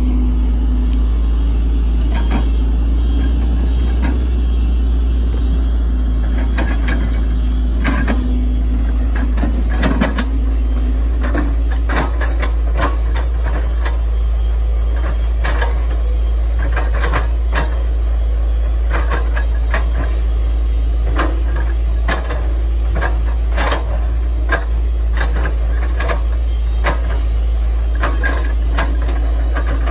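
Hitachi Zaxis 110 excavator's diesel engine running steadily, its note dropping about ten seconds in, with many sharp knocks and cracks that come more often from then on.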